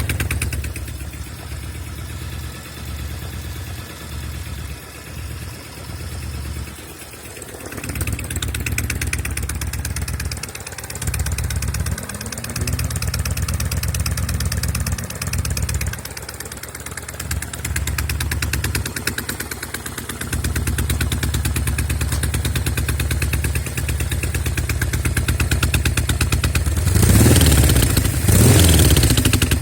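Norton Commando parallel-twin engine idling unevenly, its level dipping and picking up again, then revved twice near the end. The left cylinder is misfiring.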